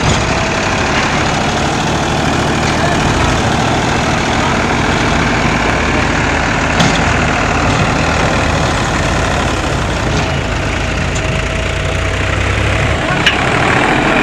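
Diesel engines of a Sonalika tractor and a backhoe loader running steadily together as the backhoe's bucket pushes the mud-bogged tractor from behind. A sharp click sounds about seven seconds in and another near the end.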